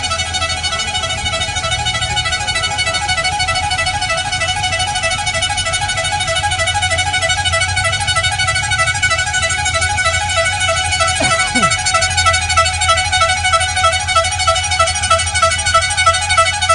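A car horn held down in one long unbroken blast, steady in pitch with a fast warble, over a low engine hum.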